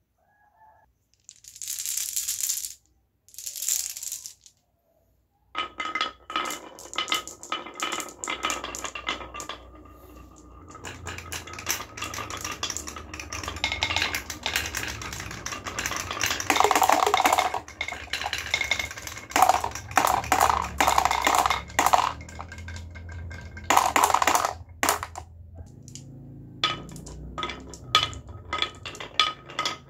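Balls running down a wooden marble run: a steady low rolling rumble with dense rapid clicking and clattering as they hit the track pieces and each other.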